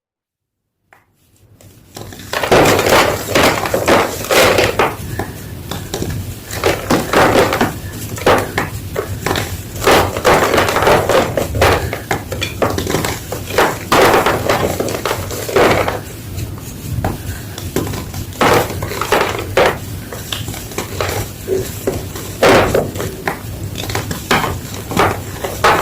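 Gym chalk crunching and crumbling as it is crushed, in a long run of irregular crisp crunches that starts about two seconds in.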